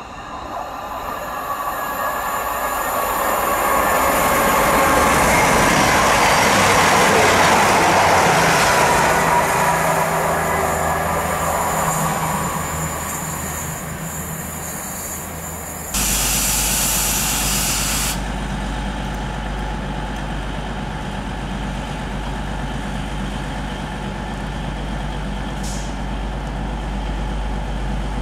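East Midlands Railway Class 222 Meridian diesel multiple unit running past, its underfloor diesel engines and wheels swelling to a peak about eight seconds in and then fading. About halfway through the sound changes suddenly: a two-second hiss of air, then a Meridian's diesel engines idling with a steady low hum.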